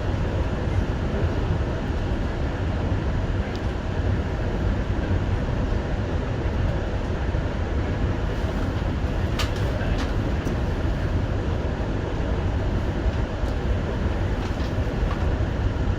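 JR Hokkaido Rapid Airport electric train running along the line, heard from inside the passenger car: a steady low rumble of wheels and motors, with a few sharp ticks about halfway through and near the end.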